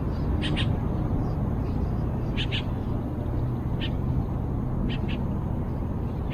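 Short high bird calls, mostly quick pairs of notes, repeating every second or two over a steady low rumble.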